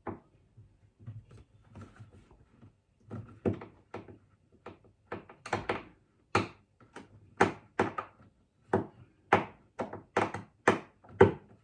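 A run of sharp clicks and knocks, roughly one or two a second and getting louder about halfway through, from a screw being worked out of a freezer's inner panel.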